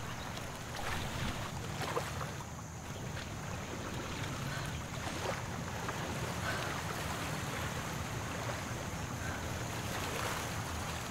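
Steady outdoor background noise, an even rushing hiss, with a few faint short sounds.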